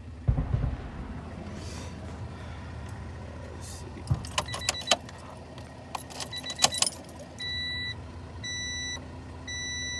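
A car's keys jangling and clicking in the ignition, with a heavy thump near the start, then the dash warning chime beeping about once a second over a steady low hum.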